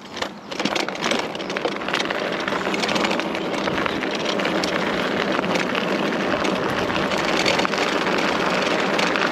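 Wind rushing over the microphone with tyre and road noise from an e-bike on the move, rising steadily in level.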